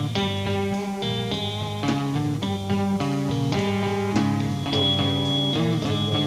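A live band playing an instrumental passage, its chords changing about once a second, with a high note held for a moment past the middle.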